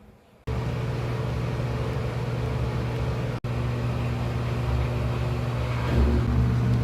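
Steady motor hum with a strong low drone, starting suddenly, with a brief dropout in the middle and a heavier, pulsing low rumble near the end.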